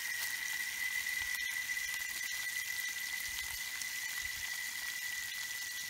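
Fish frying in oil in a pan over a wood fire, sizzling steadily, with a thin steady high tone alongside.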